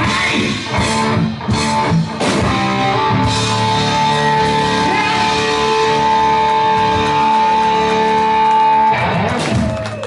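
Rock music led by guitar, with one long held note through the middle that breaks off about a second before the end.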